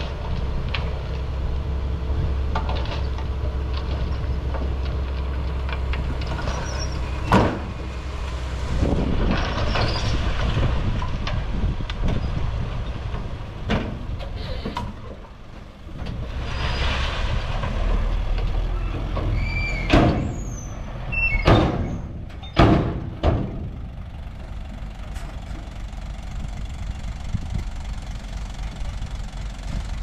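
Mini bulldozer's engine running steadily, with several sharp metal clanks and a few brief high squeals in the middle.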